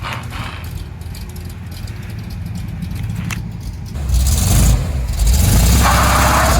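1975 Chevrolet C10 pickup's engine running on a test drive, getting clearly louder about four seconds in as it pulls harder, with a rushing hiss for about the last second.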